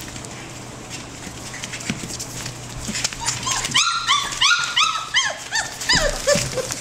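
Four-week-old F1 Labradoodle puppies crying in a quick run of short high-pitched calls, each rising and falling, starting about three seconds in, with a few lower cries near the end.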